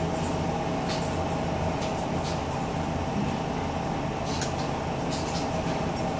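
Steady mechanical hum of a household appliance, with a few light clicks from a fork and a plastic water bottle being handled at the table.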